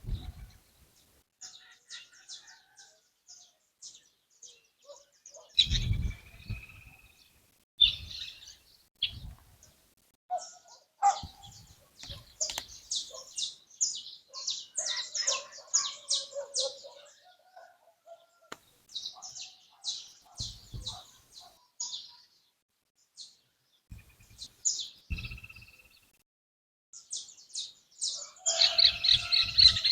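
Songbirds chirping and singing in a dawn chorus, with many quick high chirps repeated in runs. There are a few brief low thumps. Near the end a louder, denser burst of chirping sets in.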